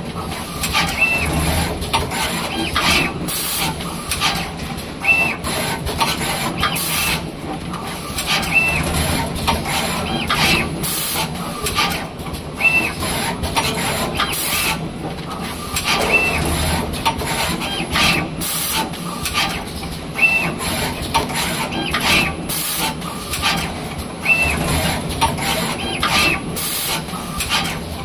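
Automatic multi-head wire soldering machine running through its cycle. Brief high whines come about every two seconds as the board tray steps along, and short hisses of air come every few seconds as the air-driven soldering heads work, over a steady machine hum.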